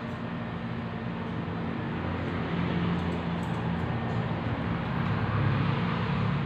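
Steady road-traffic noise from the street, a low rumble that grows louder from about two seconds in, with a few faint clicks of grooming scissors snipping.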